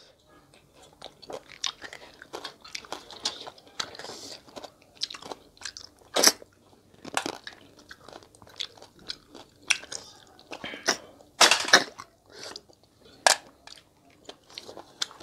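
Two people eating cooked river snails from the shell: an irregular run of short, sharp sucking slurps and clicks as the snail meat is sucked out, with a few louder ones past the middle.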